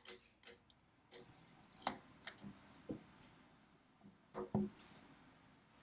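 Scattered sharp clicks from the mechanism of a Conto adding machine, a hand-worked Pascaline-type calculator, as its pointers are dialled and snap back, with two clicks close together about four and a half seconds in.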